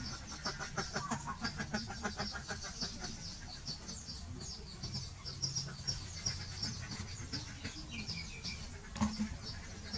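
Many small birds chirping constantly in high, short notes, with a faster chattering trill in the first two seconds, over a steady low rumble.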